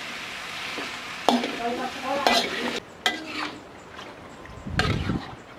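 A metal spatula stirring and scraping pieces of duck in spice paste around a large metal wok, with several sharp clanks of the spatula on the pan over a sizzling hiss. The hiss drops away sharply about halfway through.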